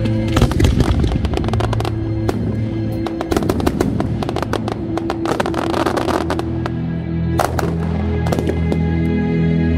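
Fireworks display set to music: a rapid volley of shell bursts and crackling in the first couple of seconds, a spell of crackling about midway, and a few separate bangs near the end, all over a music soundtrack with long held notes.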